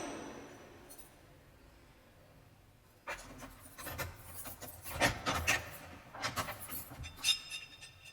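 The echoing tail of a metal prison cell door slam dies away. After a pause of about two seconds come keys and a heavy cell-door lock being worked: a run of metallic clicks, scrapes and rattles, ending in a bright metallic jingle, with the corridor's echo behind it.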